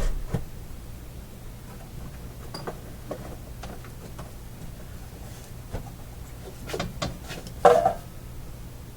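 Scattered clicks and knocks of an old radio chassis being handled and turned over on a workbench, with a loud knock at the start and a louder knock close to the end, over a steady low hum.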